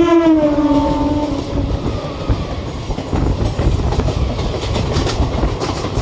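Horn of a passing EMU local train, its pitch dropping as it goes by, ending under two seconds in. It gives way to the rumble and clatter of the trains' wheels over the rails, with quick clicks at the rail joints in the second half, heard from on board a moving train.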